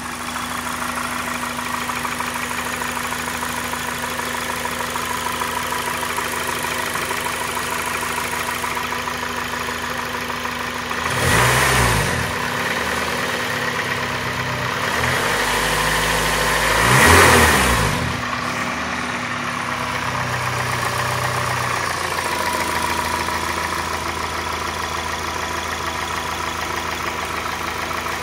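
A 2004 Acura RSX Type-S's K20 2.0-litre four-cylinder engine idling, blipped twice, about eleven and seventeen seconds in, with the pitch rising and falling each time. The owner suspects the noise it makes is rod knock.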